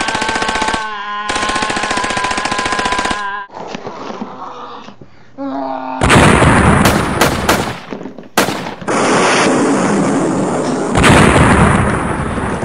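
Battle sound effects: rapid machine-gun fire for the first three seconds or so, then, about six seconds in, loud noisy blasts of gunfire and explosions with short breaks between them.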